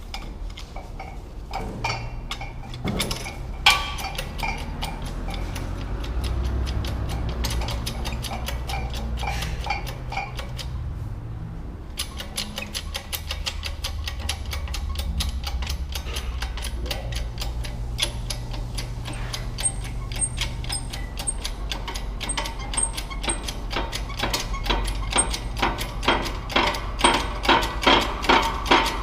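Hand ratchet wrench clicking rapidly in repeated strokes, starting about twelve seconds in and getting louder near the end, with about two strong strokes a second. A few separate metal knocks come before it, and a low steady hum runs underneath.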